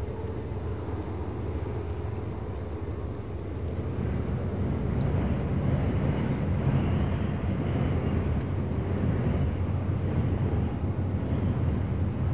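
Distant train crossing a bridge over open water: a low, steady rumble that grows louder about four seconds in and then holds.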